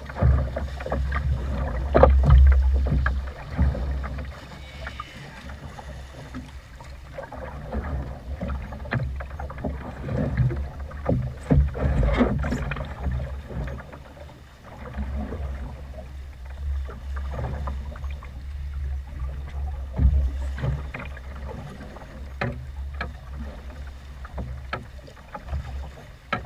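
Wind buffeting the microphone in a low rumble, with choppy waves slapping and knocking against a small boat's hull at irregular intervals.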